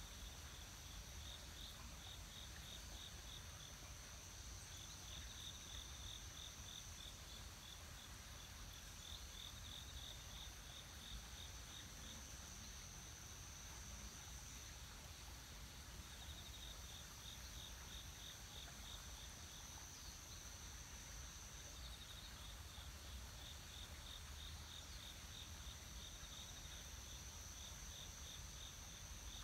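Faint insects chirping: a steady high trill, with bouts of rapid pulsed chirping that come and go every few seconds, over a low rumble.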